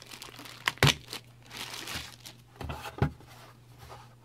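Clear plastic wrapping bag crinkling as it is pulled off a hard drive dock. Two sharp knocks come about a second in and about three seconds in.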